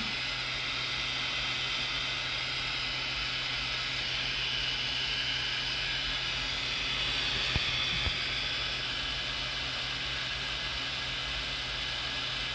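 Small 3D printer cooling fans running steadily, blowing air through a dual part-cooling duct: an even hiss of air with a thin high whine. Two faint ticks a little past halfway.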